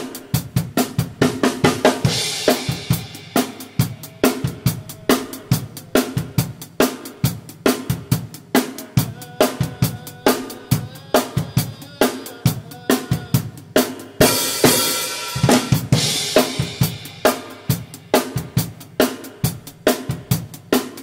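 Acoustic drum kit played on its own: a steady pop groove of kick drum, snare and hi-hat, with Sabian HHX cymbal crashes about two seconds in and again around the middle.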